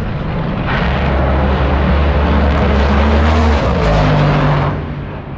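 Drag racing car's engine at full throttle during a run down the strip, loud for about four seconds, then its pitch drops and it fades near the end.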